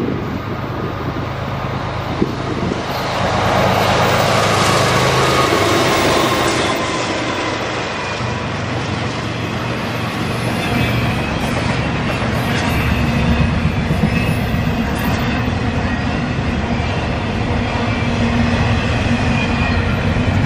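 Intermodal freight train's container and trailer cars rolling past, a steady rumble of wheels on rail with clacking over the joints, getting louder about three seconds in. A thin steady wheel squeal rides over it in the second half.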